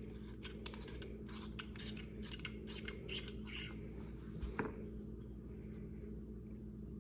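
Light, irregular clicks and scrapes of small metal tools and a pistol slide being handled, as work starts on removing the Glock's factory front sight. There is one knock about four and a half seconds in, over a faint steady hum.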